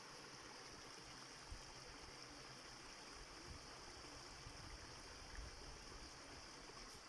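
Faint, steady rush of a flowing stream, with a few soft knocks.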